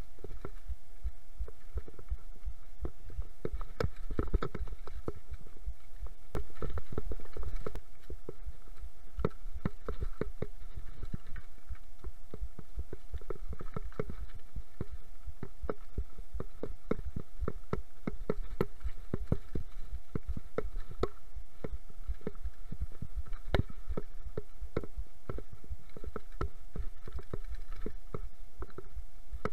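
Mountain bike rattling down a rough, rocky trail: a continuous clatter of knocks and clicks from the bike jolting over stones and roots, over a low rumble, louder for a moment about six seconds in. A faint steady hum runs underneath.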